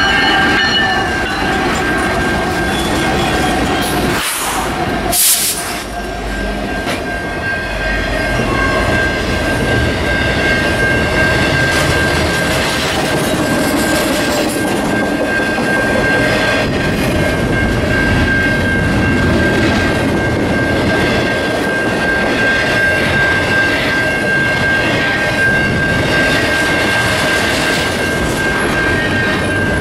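A train rolling past, its wheels clattering over the rail joints, with a steady high-pitched tone held over the rumble.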